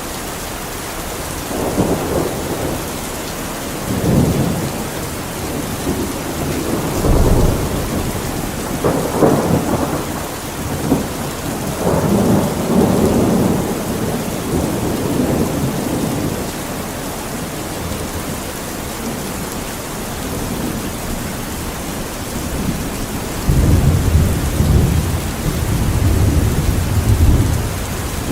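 Steady heavy rain with rolling thunder: rumbles swell and fade again and again, the longest near the end.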